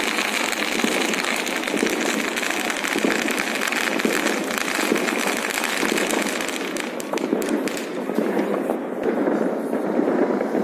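A ground firework spraying sparks: a steady hiss full of dense crackling. About seven seconds in the hiss thins out, and a few sharp cracks follow.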